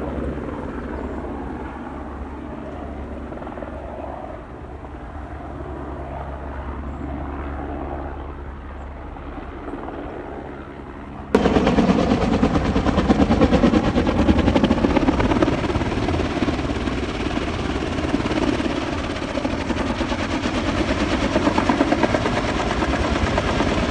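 Electric mountain bike being ridden on a trail: a steady motor drone with wind rush. About eleven seconds in it turns abruptly louder and rougher, with fast rattling and wind buffeting on the camera.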